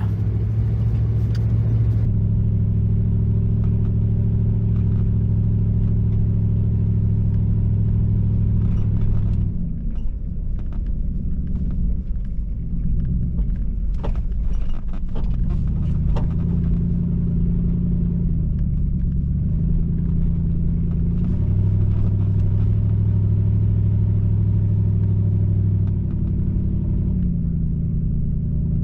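Vehicle engine running steadily while driving a dirt trail, its hum shifting in pitch several times as it slows and speeds up. Scattered knocks and rattles come through in the middle.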